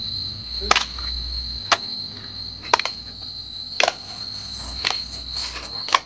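Crickets chirring in a steady high trill, with sharp clicks about once a second.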